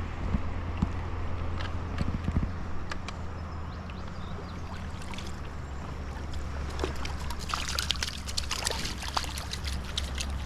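Flowing river water with a steady low wind rumble on the microphone, and a scatter of light ticks and small splashes that grows busier in the second half.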